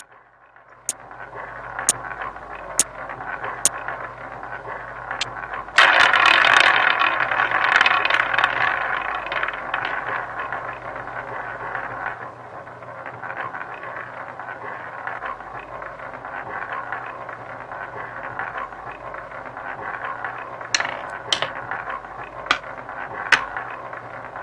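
Online roulette game sound effects: five clicks as $5 chips are placed on a bet, then the wheel spin with the ball rolling round, loud at first and fading slowly over several seconds. A few sharp clicks come near the end as the ball drops and settles into a pocket.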